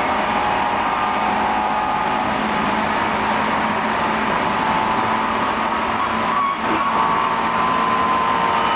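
Running noise inside a JR Central 211 series EMU motor car (MoHa 210-5017): the internal-fan traction motors whine steadily over loud rumble and rushing noise, their pitch rising slowly with speed. This car is known for an abnormal, unusually harsh motor noise. The sound dips briefly about six and a half seconds in.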